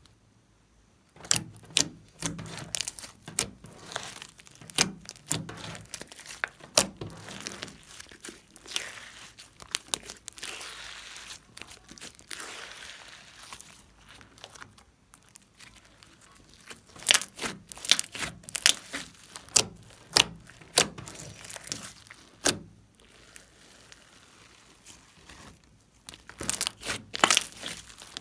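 Slime being squeezed, stretched and folded by hand, giving irregular sticky pops and clicks with a stretch of crackling about ten seconds in.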